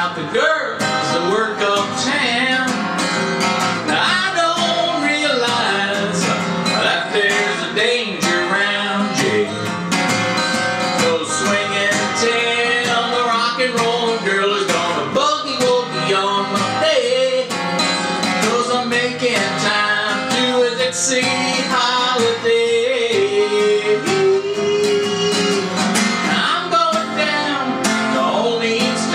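Acoustic guitar strummed and picked, with a man singing along to it.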